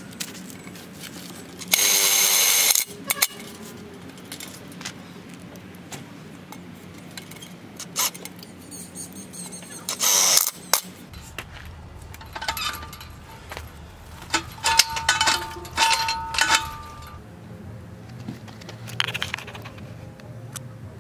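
Cordless impact drill with a nut driver driving self-drilling hex-head screws through steel brackets into a galvanized fence pole: a run of about a second about 2 s in and a shorter one about 10 s in. Between them and afterwards come metal clinks with a brief ringing tone.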